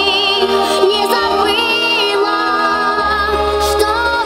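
Recorded song playing: a singing voice in long, wavering notes over instrumental backing.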